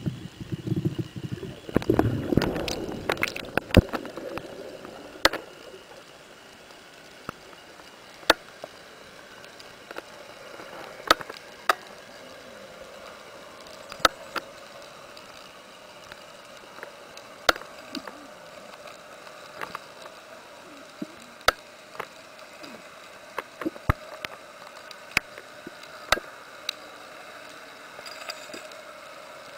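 Underwater sound during a breath-hold dive: water rushing over the camera for the first few seconds, then a steady faint hiss with sharp single clicks every second or two.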